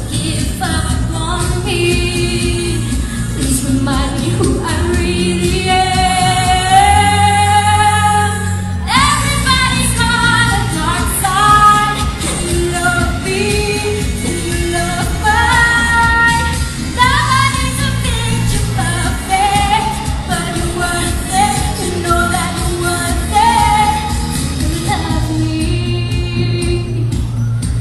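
Woman singing a song solo into a handheld microphone over instrumental accompaniment. She holds one long note about six to nine seconds in, then carries on singing.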